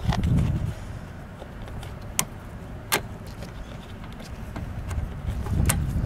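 Pliers working the fuel-line clamp on a lawn mower's carburettor: a few sharp metallic clicks, about two seconds in and again a second later, over a low rumble that swells at the start and near the end.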